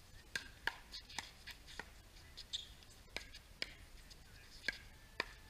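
Pickleball rally: a quick, irregular series of sharp pops as paddles strike the plastic ball and it bounces on the hard court, about ten in all.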